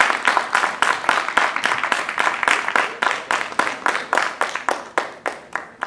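Applause from a hall audience, dense at first, then thinning and fading to a few scattered claps near the end.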